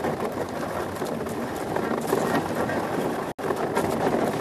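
Monotype XV ice yacht sailing fast: a steady rush of wind and runner noise over the ice, with scattered small knocks and rattles. The sound cuts out for an instant about three seconds in.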